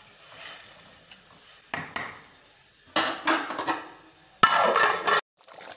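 Metal spoon knocking and scraping against a metal cooking pot of watery masala: a few light knocks in the first two seconds, a longer scrape around the middle, and a loud clatter near the end that cuts off abruptly.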